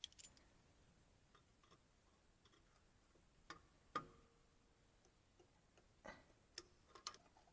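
Faint, scattered metallic clicks and taps of rear drum parking-brake hardware (shoes, springs, adjuster) being handled and worked loose. There are about half a dozen light ticks, and one sharper clink about four seconds in that rings briefly.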